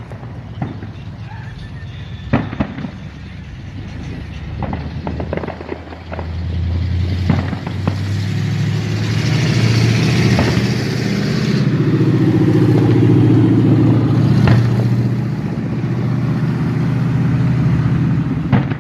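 Scattered firework pops and crackles, then a motor vehicle's engine grows loud close by about six seconds in and runs steadily for about ten seconds, with a few more sharp firework cracks over it.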